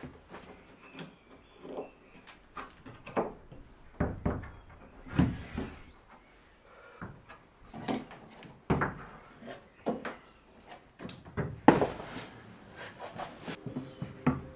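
Irregular knocks, taps and scuffs of hands and climbing shoes on holds bolted to a steep plywood climbing board, with one louder knock late on.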